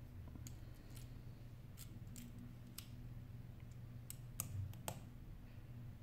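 Scattered light clicks and taps, about eight in all, of fingers handling small metal parts inside an opened iPhone 8 Plus; the loudest come in a cluster about four and a half seconds in. A low steady hum runs underneath.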